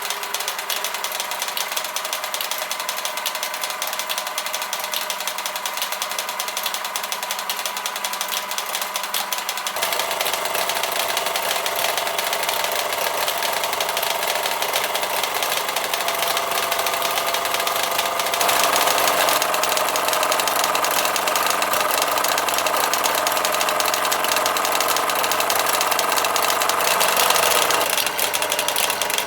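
Doll 346/5 horizontal toy steam engine running, with the rapid mechanical clatter of the belt-driven Fleischmann working models it powers. The sound grows louder about ten seconds in and again just past halfway, then eases slightly near the end.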